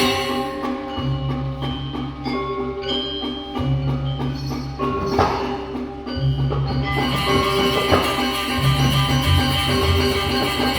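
Background music: a bass note held for about a second every two seconds under a melody of plucked, bell-like notes.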